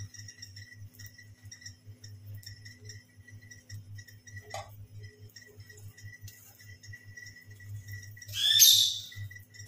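A pet bird gives one loud, sharp call about eight and a half seconds in, over a low steady hum.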